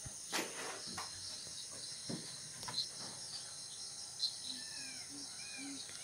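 Dusk chorus of crickets and other insects in tropical rainforest, a steady high-pitched drone. A few sharp clicks come through it, and in the second half there is a run of short, evenly repeated calls from another animal.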